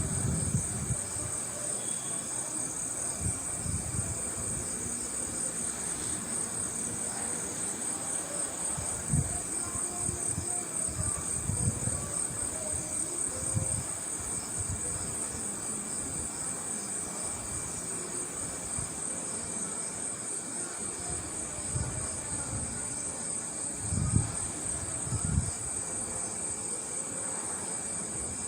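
Night insects trilling in a steady, high-pitched chorus, with a few brief low thumps: one about nine seconds in and two close together near the end.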